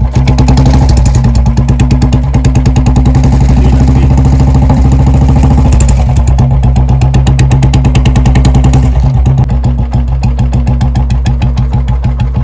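An old-model Royal Enfield Bullet's single-cylinder four-stroke engine idling at low rpm with an even, rapid thump. It is a little fuller for the first few seconds, then settles slightly quieter.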